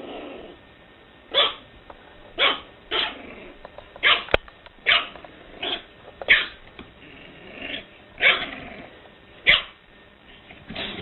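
A dog barking, about ten single barks at irregular intervals.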